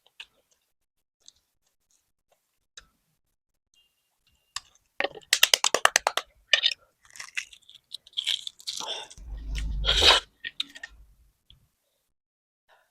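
Close-miked chewing of a boiled balut chicken egg: near quiet at first, then a quick run of crisp crunches about five seconds in, followed by wet mouth sounds and a low bump around the tenth second.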